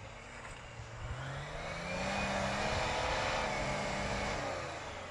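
Off-road vehicle's engine revving up over the first two seconds, held high, then easing off near the end as it pulls away through deep snow.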